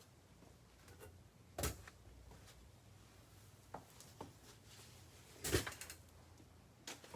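Two knocks about four seconds apart, the second louder and followed by a short rattle, with a few faint clicks between them in a quiet small room.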